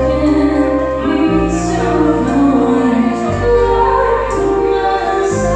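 A woman singing a slow ballad into a handheld microphone over an instrumental backing track of sustained keyboard chords and bass, the chords changing about every two seconds.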